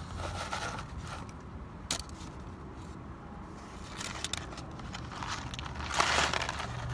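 Fried popcorn chicken tipped out of a cardboard box onto a paper plate, with faint crackling, scraping and a sharp click about two seconds in. Near the end, curly fries are poured out of a paper sleeve, a louder paper rustle. A low steady hum runs underneath.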